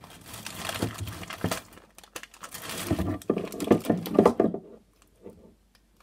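Plastic sweet wrapper crinkling and rustling as it is handled in the hands, in irregular crackling bursts that die down after about four and a half seconds, leaving a few faint ticks.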